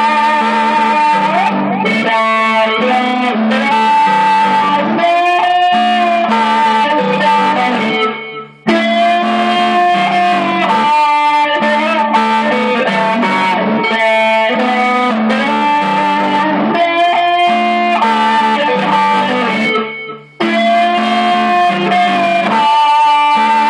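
Electric guitar playing a repeating melodic phrase with held notes over a steady lower part. The sound drops out briefly twice, about eight and twenty seconds in.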